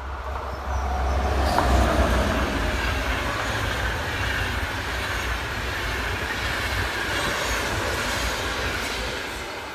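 Locomotive-hauled intercity train passing at speed: a rumble and wheel-on-rail noise that swells over the first two seconds, holds steady as the long rake of coaches goes by, and begins to fade near the end.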